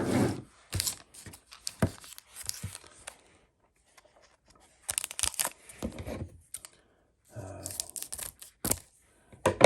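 Foil wrapper of a Panini Prestige football card pack being torn open and crinkled, in several irregular rips and rustles with short pauses between them.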